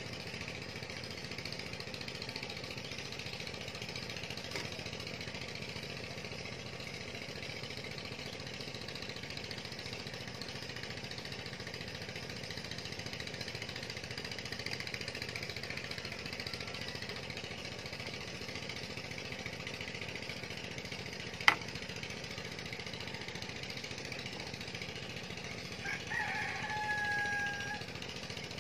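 A steady outdoor hiss, broken by a single sharp click a little past the middle, then a rooster crowing once near the end, a drawn-out call that falls slightly in pitch.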